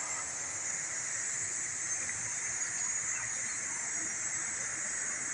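Steady, even, high-pitched hiss of outdoor background noise, with no distinct events.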